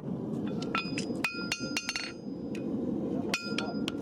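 Farrier's hammer striking hot horseshoe steel on an anvil: a run of quick ringing blows, a pause, then a few more near the end, over a steady low rumble.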